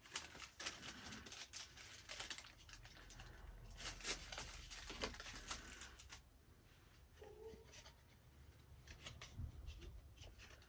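Small paper and card packaging handled and opened by hand: light rustling, scrapes and small clicks, busiest in the first six seconds, with a few more near the end.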